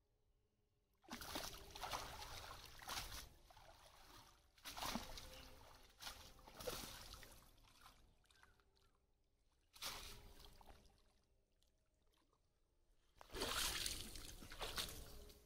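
Pond water sloshing and streaming off a wet cast net in four separate bursts as the net, with fish inside, is gathered up and hauled out of the shallow water.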